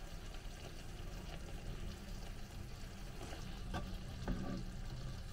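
Metal ladle scooping pork stew out of a pan and onto a plate, with two sharp clinks against the pan about three and a half and four seconds in, over a steady hiss.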